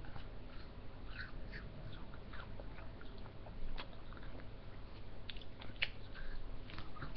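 Mouth sounds of someone eating an ice lolly: quiet, scattered, irregular smacks, slurps and small bites.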